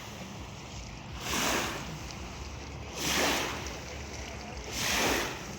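Small waves washing in against the shore, three swelling splashes evenly spaced a little under two seconds apart, over a steady low rumble.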